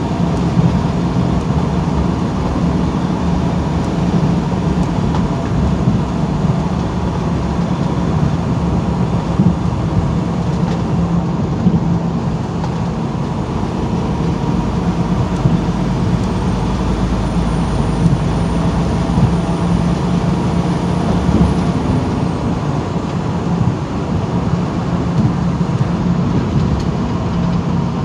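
Steady drone inside the cab of a semi truck cruising at highway speed: the diesel engine hum and tyre and road noise.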